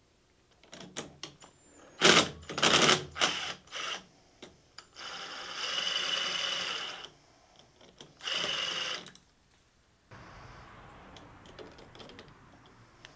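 Ridgid cordless drill with a socket spinning off the 10 mm nut that holds a bus bar to the battery terminals. A run of sharp metal clicks and knocks comes first, then the drill motor whirs steadily twice, the first run about two seconds long and the second shorter.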